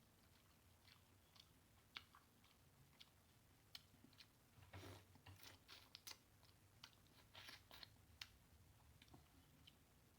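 Close-up mouth sounds of eating a saucy seafood boil: chewing, wet lip smacking and sucking, with scattered sharp clicks. A denser run of smacking comes about five seconds in and again a couple of seconds later.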